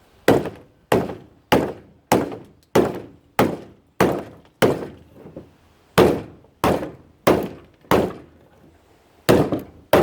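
Hammer blows beating on a car radiator fan motor's tough plastic housing on a workbench to break it apart: a steady run of sharp strikes about every half second or so, pausing briefly midway.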